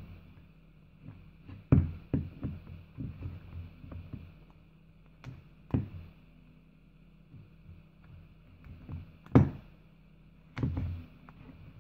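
Irregular knocks and taps from a jumper-cable clamp and cable being handled on a wooden workbench, with two louder knocks about two seconds in and near nine seconds in, over a faint steady hum.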